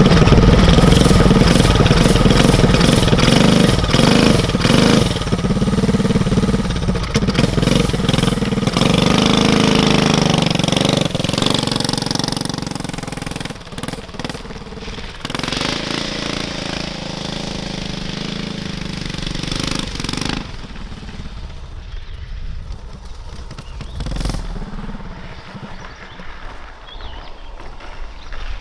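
Small go-kart engine on a drift trike running hard under throttle, loud at first, then easing back about halfway through and fading lower for the last third.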